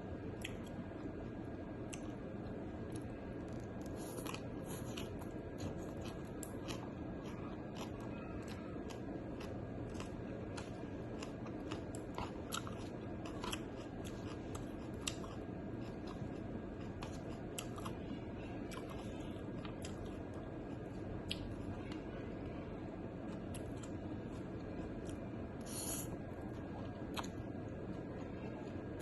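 A person chewing and eating, heard close up, with many sharp irregular clicks and smacks over a steady low background hum.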